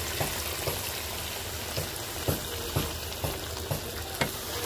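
Chicken curry with potatoes sizzling and bubbling in a pan, a steady hiss broken by sharp, irregular ticks about twice a second.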